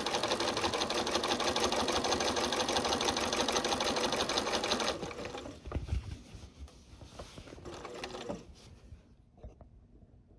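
Electric sewing machine stitching through quilt binding at a fast, steady rate, stopping about five seconds in. Quieter handling noises and a soft thump follow.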